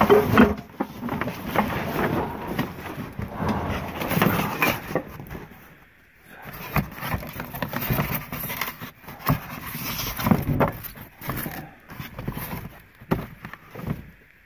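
Cardboard boxes being pulled and shifted by hand: irregular scraping, rustling and knocks, with a short lull about six seconds in.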